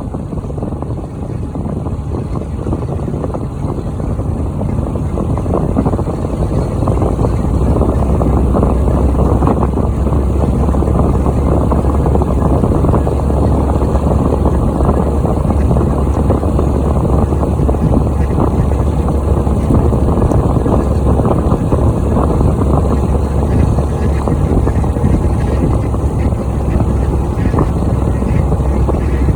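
Vehicle engine running under way, a steady low rumble mixed with wind noise that builds over the first several seconds and then holds.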